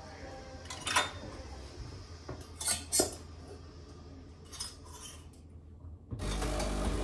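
Cutlery and dishes clinking and knocking several times as they are handled; the sharpest clinks come about one and three seconds in. Near the end a steady, louder noise with a low hum starts.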